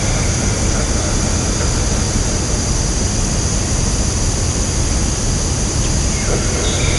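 Woodland ambience: a steady, dense rushing noise with a constant high hiss over it and a low rumble underneath. Faint high tones come in near the end.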